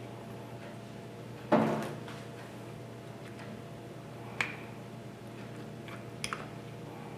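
A metal spoon knocking and clinking against a glass jar while cacao powder is stirred into overnight oats. One louder knock with a short ring comes about a second and a half in. Single light clinks follow a little past four seconds, and a quick pair comes around six seconds.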